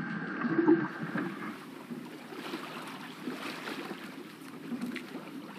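Underwater sound from a shark dive: a low rumble of water and bubbles with crackles and a thin steady whine that stops about a second in, then a softer hiss with scattered clicks.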